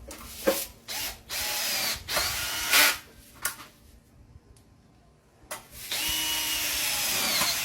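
Cordless hammer drill (DeWalt 26V) driving screws in two runs of about a second and a half, the motor whining. Each run grows louder near its end as the hammer action kicks in to press the screw tight once it meets resistance. A few short clicks fall between the runs.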